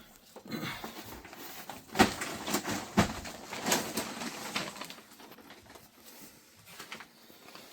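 Sump pit lid and discharge pipe being worked into place: scraping and rubbing with a few sharp knocks in the first half, fading to light handling near the end.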